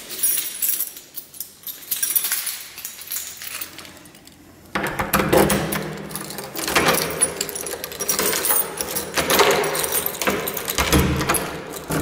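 A bunch of keys jangling and clinking, with a burst early on and then louder, denser jingling from about five seconds in.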